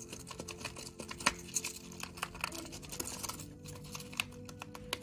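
Dwarf hamster gnawing and tearing at a small piece of cardboard: rapid, irregular crisp clicks and crackles, with one sharper snap about a second in.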